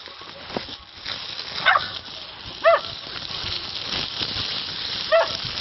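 Puppies whimpering from inside a woven plastic sack: three short high whines that rise and fall, the first two about a second apart and the last near the end, over the rustle of the sack being handled.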